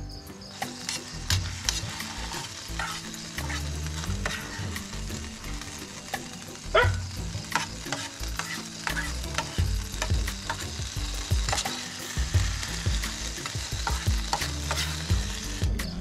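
Food frying and sizzling in a pan, stirred with a utensil that clacks and scrapes against the pan now and then.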